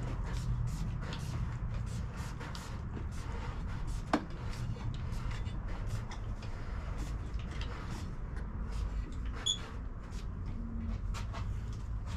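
Pump spray bottle spritzing CA glue activator onto the glued spider of a subwoofer being reconed: many short hisses in quick, irregular succession, with a single knock about four seconds in. A low steady hum runs underneath.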